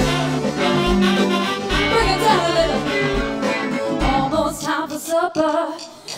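Live band playing a blues-soul tune with saxophone, electric guitar, bass and drums, and a woman singing into the microphone in the second half.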